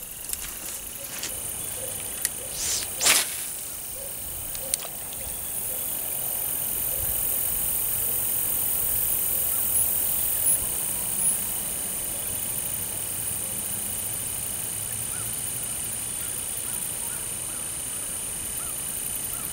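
A fishing cast: a quick swish of the rod and line about three seconds in. Then a steady sound while the lure is reeled back in.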